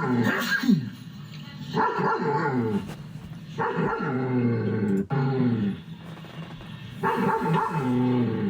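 A dog vocalising in a series of about five drawn-out, pitched calls, each roughly a second long and sliding down in pitch, with short pauses between them.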